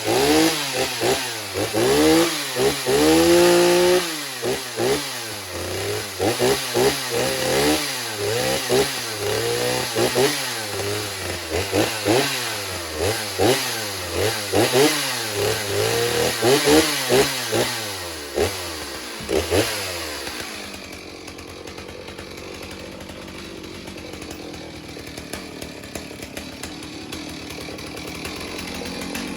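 Stihl 039 two-stroke chainsaw on a test run after a service, its throttle blipped over and over so the engine revs up and drops back about once a second, with one longer held rev early on. About twenty seconds in the revving stops and it goes quieter and steady.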